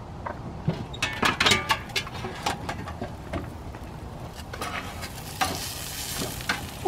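NY strip steaks sizzling over charcoal on a Weber Jumbo Joe kettle grill, with a run of metal clicks and clatters about a second in. The sizzle grows louder about five seconds in, once the grill lid is off.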